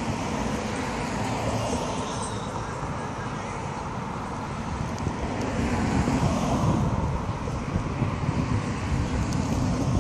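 Road traffic at an intersection: cars driving past, engine and tyre noise, swelling a little from about five seconds in.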